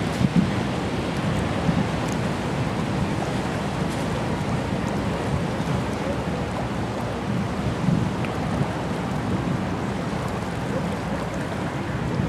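Steady rush of wind and water, with wind buffeting the microphone in low gusts.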